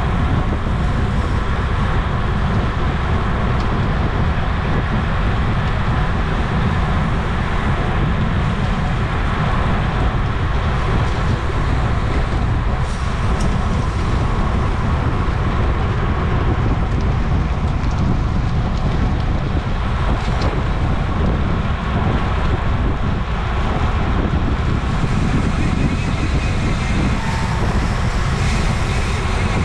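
Wind rushing over a racing cyclist's camera microphone at speed: a steady low rumble.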